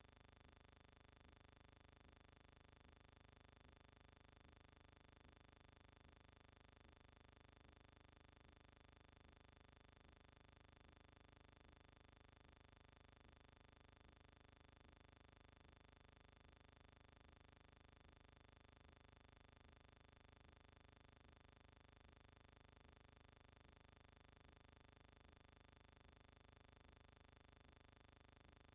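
Near silence: only a faint, steady hum and hiss with no sound from the scene.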